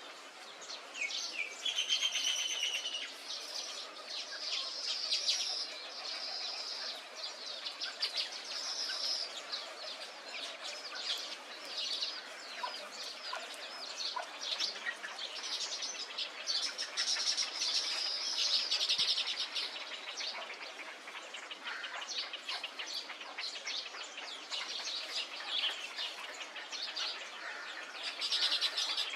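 Many birds calling at once: a dense, unbroken chorus of overlapping chirps and rapid chattering trills.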